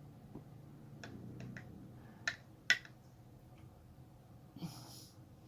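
Small, sharp clicks of a lock pick and tension tool working the pins of a pin-tumbler challenge lock: a few light ticks, then two sharper clicks about two and a half seconds in. Near the end comes a short breath.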